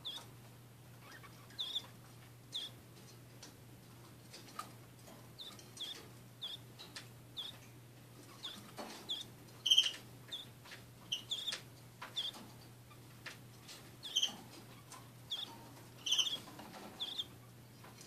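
Canary nestlings chirping: short, thin peeps at irregular intervals, a couple of them louder, with faint ticks of the chicks shifting in the nest, over a low steady hum.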